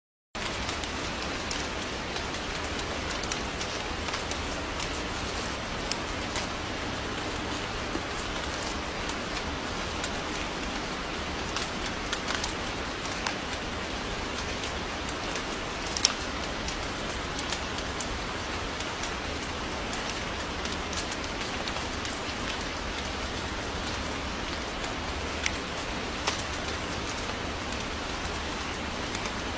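Steady rain falling: an even hiss with scattered sharper drop ticks, one louder tick about halfway through and two more near the end.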